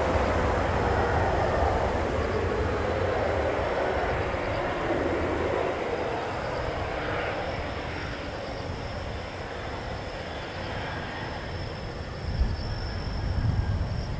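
Jet engine roar of a landing Boeing 777-200ER, loud at first and fading steadily over several seconds as the airliner decelerates on the runway after touchdown. Near the end, low rumbling gusts of wind hit the microphone.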